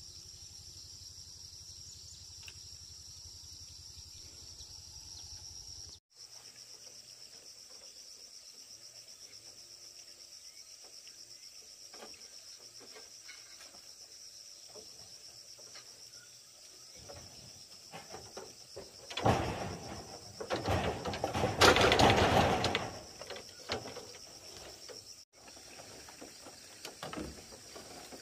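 Steady chorus of insects, a constant high-pitched drone, with two brief dropouts. About two-thirds of the way in, a loud, noisy stretch lasting a few seconds rises over it.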